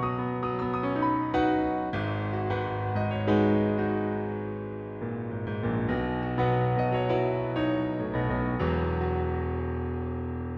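Garritan CFX virtual piano, built from samples of a Yamaha CFX concert grand, playing a series of full struck chords; the last chord, about eight and a half seconds in, is held and rings out, slowly fading.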